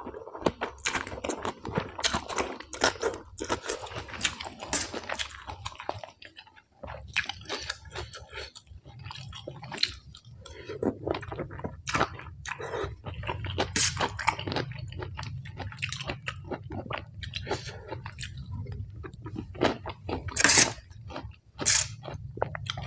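A person chewing mouthfuls close to the microphone, with many crunching bites, while eating rice noodles in fish-innards curry with raw vegetables. The chewing pauses briefly about six seconds in.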